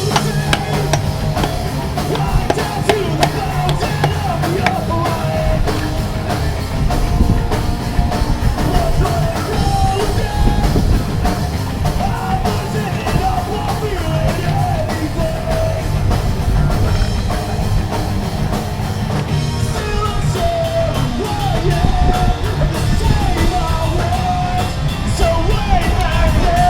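Background rock song with singing over a steady drum kit.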